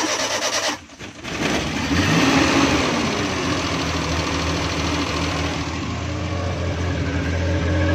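A Suzuki Bolan's 796 cc three-cylinder petrol engine being started: a short burst of cranking, then the engine catches about a second in, revs briefly and settles into a steady idle.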